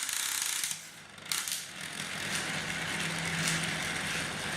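9-volt Lego motor driving a train of plastic Lego gears, running with a steady mechanical whir and a faint hum. It stops briefly about a second in, then starts again.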